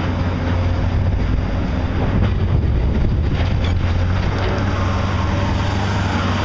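Heavy construction machinery engine running steadily, a constant low hum under a broad noisy rumble.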